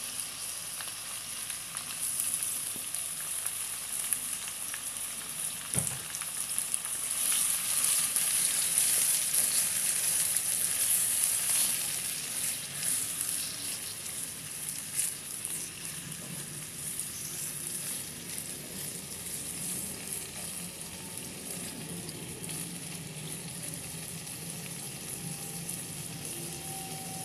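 Marinated chicken gizzards and livers sizzling in hot oil in a non-stick wok as they are stirred with a spatula. The sizzle is loudest about seven to twelve seconds in, then settles to a steadier, quieter sizzle; there is a single knock about six seconds in.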